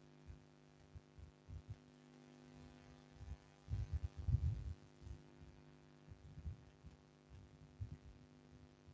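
Faint steady electrical hum with scattered soft, low thumps, thickest about four seconds in, as a stylus is used to write on an interactive display board.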